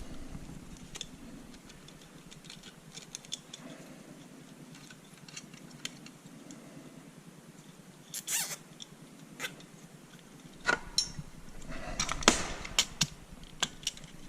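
Hands handling wires and small plastic and metal parts: scattered small clicks and rustles, a short scraping sound about eight seconds in, and a cluster of sharper clicks near the end.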